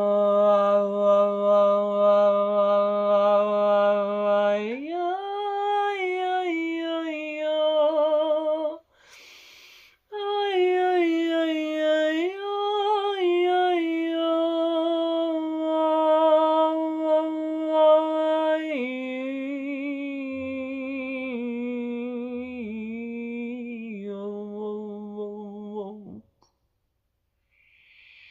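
A single voice toning in a wordless sound-healing transmission: long held, hummed and sung notes that step up and down in pitch. It starts on a low note, moves higher, pauses for a breath about nine seconds in, then descends in steps and stops a couple of seconds before the end.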